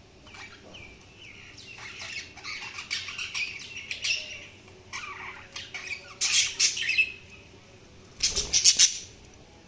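Budgerigars chattering with rapid chirps and warbles that grow busier after the first second or two. The loudest flurries of calls come about six seconds in and again near the end.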